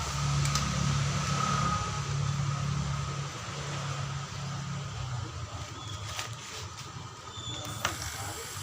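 Compressed air hissing during a 200 PSI air-pressure leak test of a car AC compressor, over a low pulsing hum that fades out about five seconds in. A couple of sharp clicks come late on.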